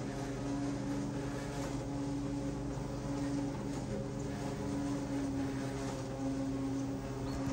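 NordicTrack treadmill's drive motor and belt running steadily at a low walking speed, a continuous hum with a few steady pitched tones.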